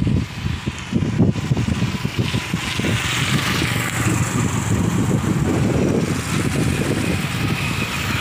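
Wind buffeting the microphone over the rumble of road traffic, with motorcycles passing on the bridge; a hiss grows stronger about three seconds in.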